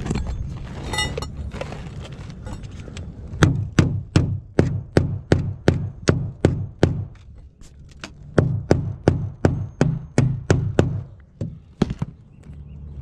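A hammer striking repeatedly on a roof, in two runs of quick blows at about three a second, with a short pause between the runs.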